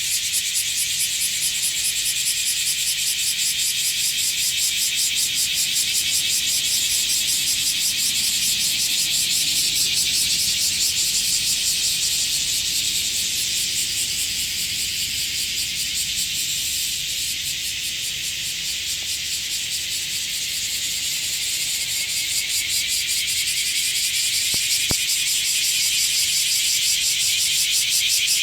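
A chorus of many cicadas singing together: a dense, steady, high-pitched buzz that eases a little about two-thirds of the way through, then builds again.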